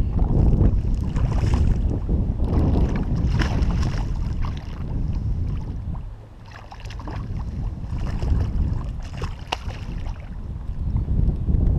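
Wind buffeting the microphone in a steady low rumble over lake water, with a few brief splashes from a hooked blue catfish thrashing at the surface beside the boat.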